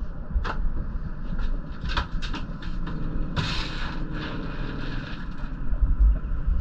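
Wind rumbling on the microphone, with several sharp clicks and knocks as bowls of dry dog food are set out on a boat deck. A short burst of noise comes about halfway through.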